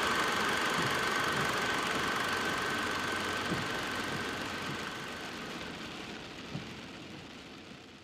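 Car engine idling under a steady hiss, with a faint high steady tone, fading out slowly.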